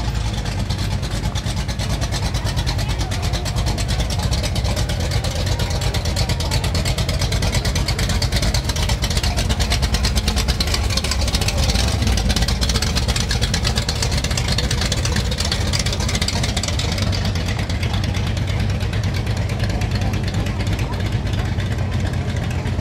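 Engines of classic cars running at low speed as they pass close by, a steady rumble that swells about ten seconds in as a lowered late-1960s Chevrolet pickup goes by, with a 1960s Corvette convertible running near the end.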